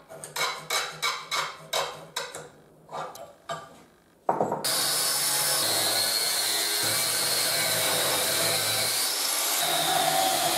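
Rhythmic rasping strokes of a hand tool on steel, about two a second, then a grinder's abrasive disc cuts in suddenly about four seconds in and grinds steel with a steady loud hiss, throwing sparks.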